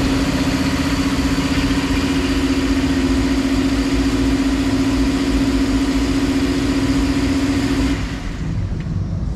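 Subaru Forester 2.0i-S's 2.0-litre flat-four engine running just after starting, with a steady hum that cuts off about eight seconds in.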